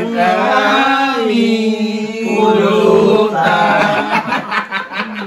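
Singing in a chant-like style, with long drawn-out notes that slide up and down.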